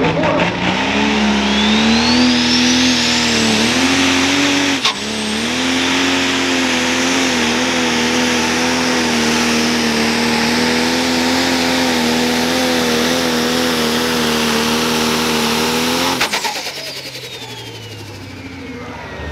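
A tractor-pulling tractor's engine running flat out under load, holding one steady note for about fifteen seconds, with a high whistle rising in the first few seconds. Near the end the engine note cuts off sharply and the sound drops, with a high whistle falling away.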